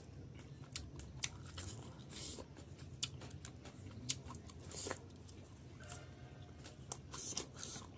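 Close-miked chewing and biting of a raw leafy green sprig and its stem, with many sharp crunches and wet mouth clicks.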